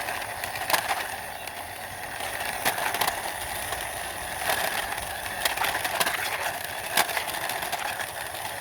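Toy car pushed along by hand, its wheels rolling with a steady noise broken by scattered sharp clicks.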